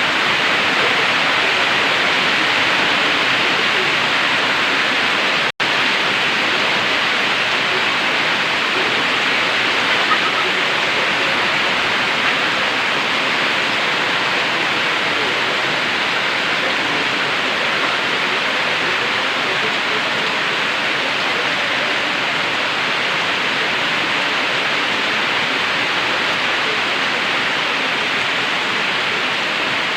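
Steady rain from a tropical storm, falling as an even, unbroken downpour. It cuts out for a split second about five seconds in.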